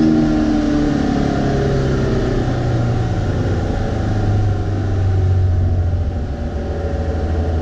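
Air-cooled flat-four engine of a 2387 cc VW Beetle, heard from inside the cabin while driving. The revs fall over the first few seconds, then it runs steadily at a lower speed.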